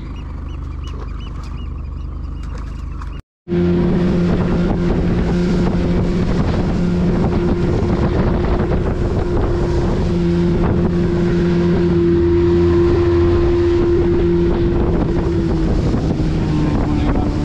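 Motorboat engine: a quieter steady hum for the first few seconds, then, after an abrupt cut, running loud and steady under way with wind on the microphone. Its note dips slightly near the end.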